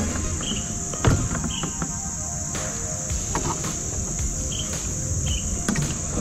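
Steady high-pitched chorus of insects, with a single knock about a second in.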